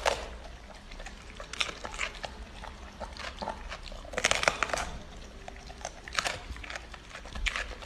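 A golden retriever chewing a raw green bell pepper: irregular crisp crunches as its teeth bite through the flesh, with a burst of several crunches about four seconds in.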